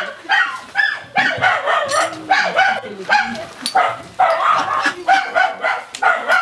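Ducks calling in a continuous run of short calls, about two or three a second.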